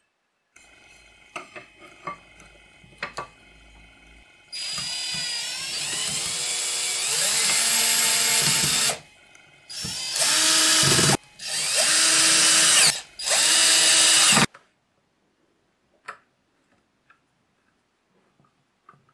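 Cordless 12 V drill-driver working at an electric hand planer's aluminium base: one long run of about four seconds, its pitch shifting under load, then three shorter bursts. A few faint clicks follow.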